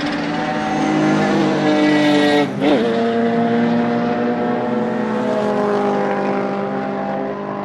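Mazda RX-7 FB rally car's naturally aspirated 13B twin-rotor Wankel engine accelerating hard, its revs climbing, then dropping with a quick upshift about two and a half seconds in, and climbing again through the next gear before easing near the end.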